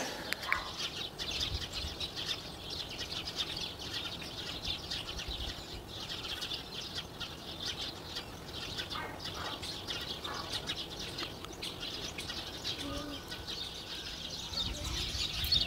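Many small birds chirping and twittering in the trees overhead, a steady chorus of short high chirps.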